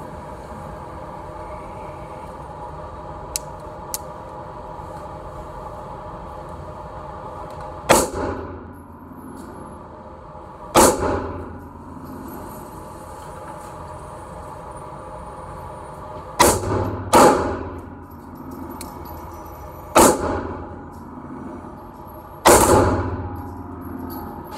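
Six gunshots spaced a few seconds apart, two of them close together, each with a ringing echo off the concrete walls of an indoor range. A steady ventilation hum runs underneath.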